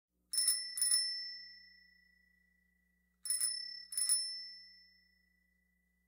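A small bell struck twice in quick succession, then twice again about three seconds later, each strike ringing out with a clear high tone that fades over a second or so.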